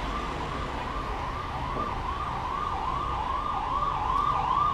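A siren in a rapid yelp, its pitch rising and falling about three times a second.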